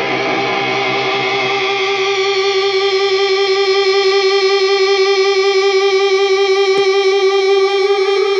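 Electric guitar drone: a single sustained note held with many overtones, wavering several times a second. Lower notes die away about two seconds in, leaving the one high note ringing on, with a brief click near the end.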